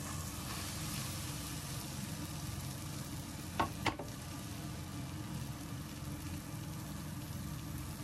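Egg-soaked slice of bread for French toast sizzling steadily as it fries in a nonstick frying pan. Two short clicks come about three and a half seconds in.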